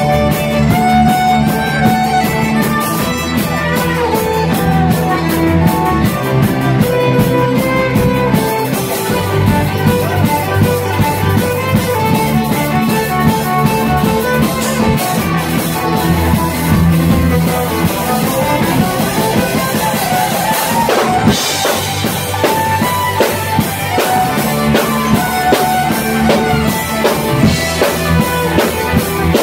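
Folk-punk band playing live: fiddle over electric guitar, bass and a driving drum kit. The fast drumming changes pattern about eight seconds in, and a cymbal crash comes about two-thirds of the way through.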